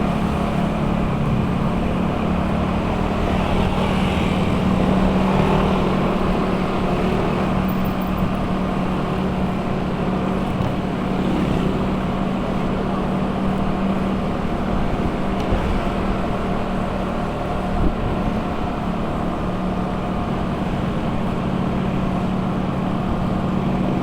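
A motor running steadily: a constant low hum under a rushing noise, with no change in pitch.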